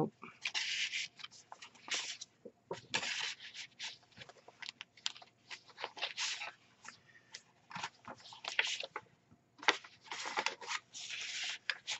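Paper rustling and crinkling as the pages of a file-folder junk journal are turned and its tag cards and envelope inserts are handled: a run of irregular short rustles and soft taps.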